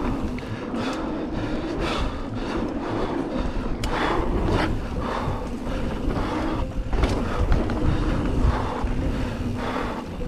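Mountain bike rolling down a dirt trail: tyres running over the ground, wind buffeting the microphone, and the bike knocking and rattling over bumps every second or two.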